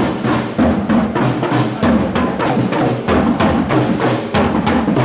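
Parade drum band playing a steady beat of several sharp strikes a second.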